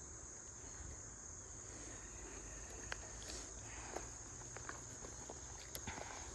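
Steady high-pitched chorus of crickets, with a few faint scattered clicks.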